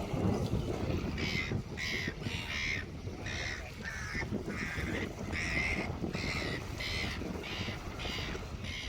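A bird giving a long series of short calls, about one every half second, over a steady low rumble of wind.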